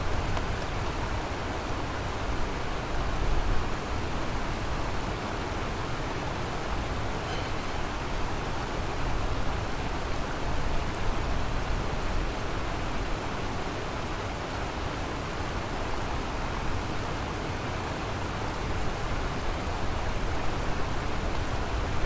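Kamo River water flowing, a steady, even rushing with a strong low rumble underneath.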